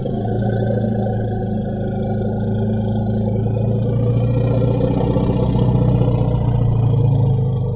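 Elephant sound effect: one long, low rumble with a coarse, buzzing texture, held steady at a deep pitch.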